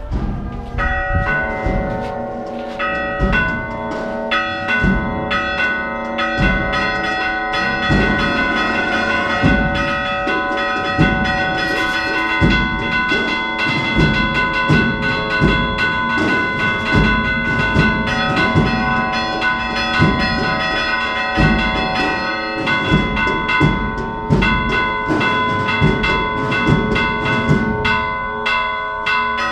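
Church tower bells rung by hand, the ringer pulling the clapper ropes so the bells strike in a quick, even run of strokes. Each note rings on under the next, so the tones pile up.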